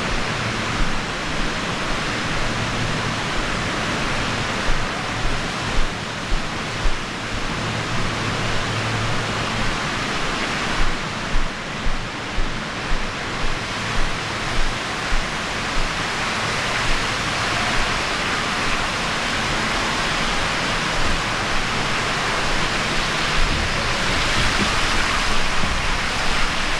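Steady rushing of flowing water echoing through an indoor water-park hall, from the water running down the waterslides. Through the middle stretch there is a run of regular thumps about once a second, and the rush grows a little louder near the end.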